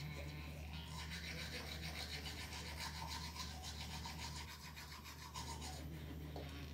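Manual toothbrush scrubbing teeth: a faint, quick back-and-forth brushing sound that eases off briefly about five seconds in.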